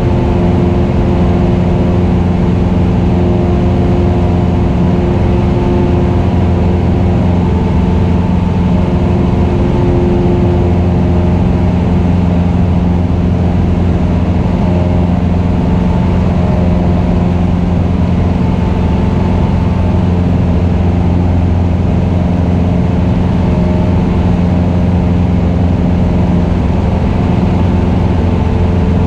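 Cessna 172RG's 180 hp four-cylinder Lycoming engine and propeller running at takeoff power in the climb-out, a steady drone that holds unchanged throughout.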